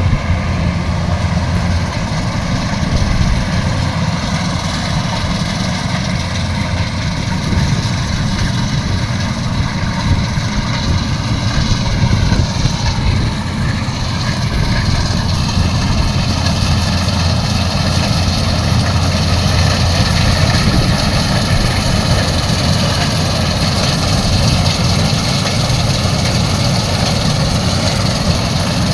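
Diesel engine of a Kubota combine harvester running steadily.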